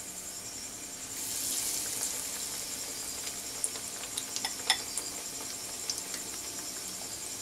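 Batter-coated bread slices deep-frying in hot oil: a steady sizzle that grows louder about a second in, as a second slice goes into the oil, with scattered crackling pops.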